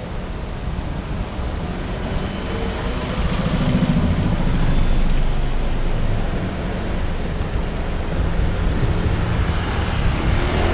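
Steady road-traffic noise heard from a moving bicycle, with a bus engine running close alongside and growing louder around four to five seconds in.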